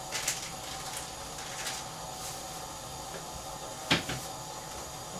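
Refrigerator being opened and rummaged: a few light clicks, then a sharp clack and a second click about four seconds in, over a steady background hiss.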